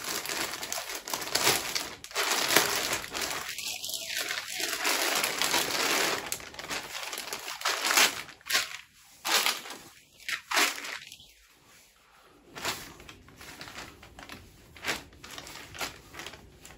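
Thin clear plastic polybag crinkling and rustling as a folded T-shirt is handled and pulled out of it, in irregular bursts with short lulls.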